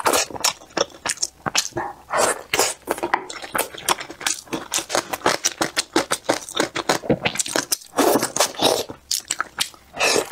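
Chewing and biting of soft boiled vegetable-filled dumplings: a run of irregular wet smacks and mouth clicks, picked up close by a clip-on microphone.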